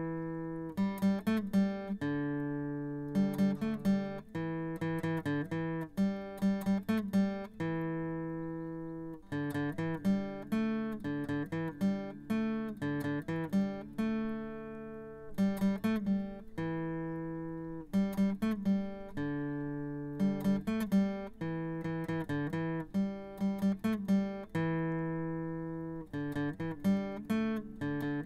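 Background music: an acoustic guitar picking notes and strumming chords that ring out and fade.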